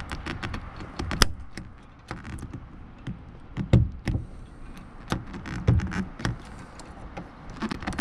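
Irregular sharp clicks and several heavier knocks as a tool works at the retaining pin of a Rover P4 interior door handle to knock it out.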